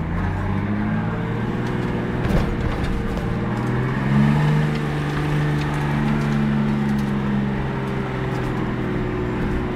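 Off-road 4x4's engine running under load as it drives over a gravel riverbed, heard from inside the cab; its pitch steps up and down several times as the revs change, with a single knock about two and a half seconds in.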